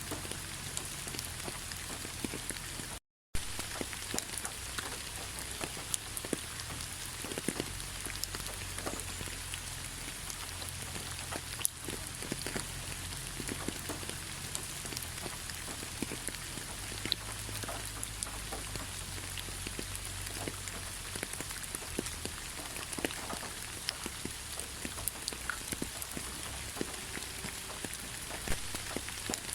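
Steady rain falling, an even hiss with many separate drop ticks over a low rumble; the sound drops out completely for a split second about three seconds in.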